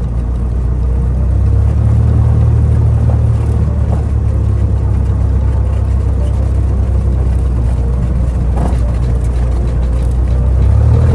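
Cessna 172's single piston engine running with a steady low drone, which grows louder about a second and a half in and again near the end.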